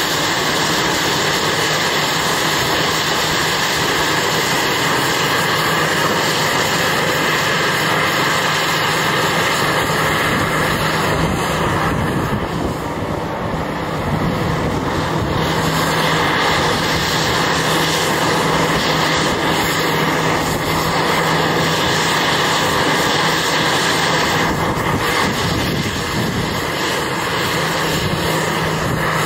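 Cat 6015B hydraulic mining excavator working, its large diesel engine running steadily under load, easing briefly about twelve seconds in.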